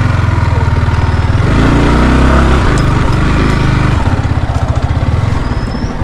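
Motorcycle engine running, the revs rising about a second and a half in and easing back about four seconds in.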